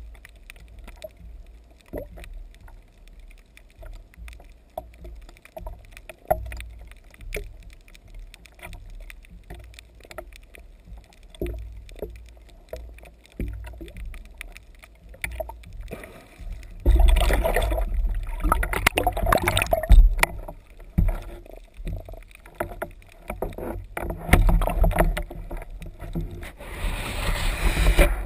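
Water sloshing and churning, heard muffled from under the surface, with scattered small knocks. From about halfway through it grows much louder and splashier, with peaks near the end.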